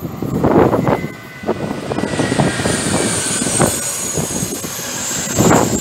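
SNCF TGV Duplex double-deck high-speed train passing close, with wheel-on-rail rumble and irregular thumps. About two seconds in, a thin steady high squeal sets in from the wheels on the curve.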